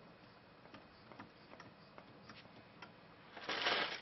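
Hand work on small parts of a hedge trimmer: scattered light clicks and taps of parts being handled, then a short, loud rustling noise near the end.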